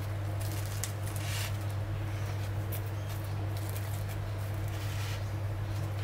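Soft rustles and squishes of hands setting sesame bun tops onto burgers with shredded lettuce and pressing them down, over a steady low hum.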